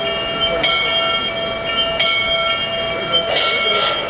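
O-gauge model steam locomotive running by with its onboard sound system sounding a long, steady whistle. About three seconds in, the clatter of cars rolling over the three-rail track joins it.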